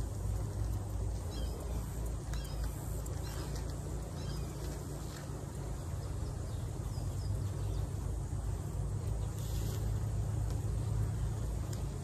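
A steady low rumble, with a few faint bird chirps between about one and five seconds in.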